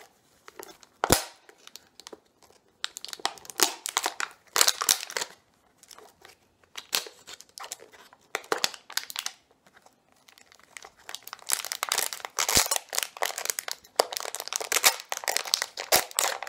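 Clear plastic packaging of a dog's fetch ball crinkling and tearing as it is worked open by hand, in bursts with short pauses, and a couple of sharp snaps: about a second in and again past the middle.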